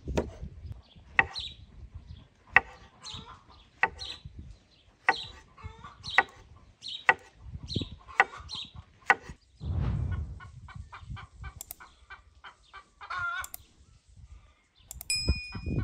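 Domestic chickens clucking, with sharp knocks about once a second through the first nine seconds or so.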